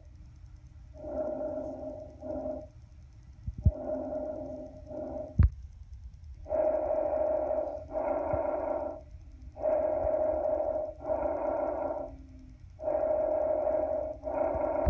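Recorded lung breath sounds: five breath cycles about three seconds apart, each heard as two bursts with a short break between them, carrying a steady humming pitch. The last three breaths are louder than the first two. There are two sharp clicks in the first half.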